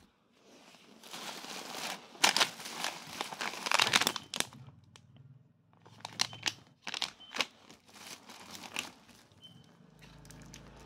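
Thin plastic carrier bag crinkling and rustling as hands rummage through it among packaged snacks and bottles: a dense run of crackling for the first few seconds, then scattered sharper crinkles and clicks.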